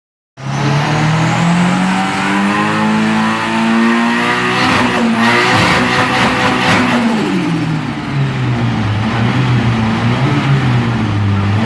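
Turbocharged Nissan Silvia engine revving hard, rising in pitch over the first few seconds. Around the middle it breaks into a loud, rapid fluttering chatter from the turbo (compressor surge as the throttle shuts), and the engine note then drops to a lower, steadier pitch.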